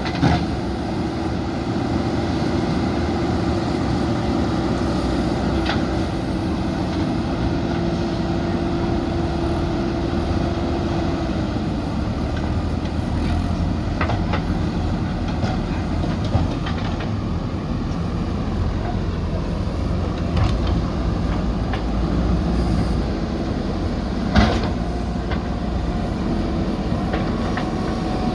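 JCB 3DX backhoe loaders' diesel engines running steadily under working load. A few sharp metallic clanks are heard, the loudest about three-quarters of the way through.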